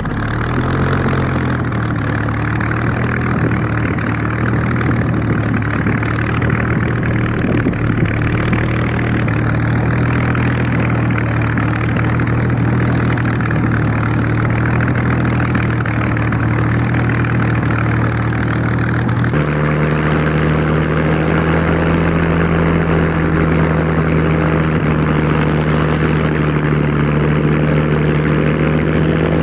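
Aircraft engine running steadily just after start-up, then its speed steps up to a higher steady pitch about two-thirds of the way through.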